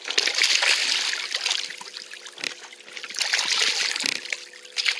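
A hooked smallmouth bass thrashing and splashing at the water's surface as it is played beside the boat: one burst of splashing at the start, as it jumps, and another about three seconds in.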